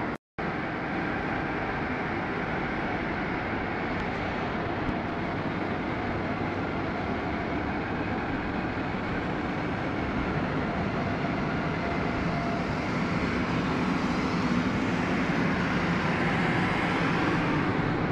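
Super heavy-duty lathe running as it turns a large steel roll: a steady mechanical noise with a faint hum. It cuts out for a moment right at the start and grows a little louder over the last few seconds.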